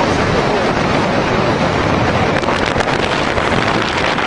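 Loud wind rushing over the microphone at riding speed, with motorcycle engines running underneath.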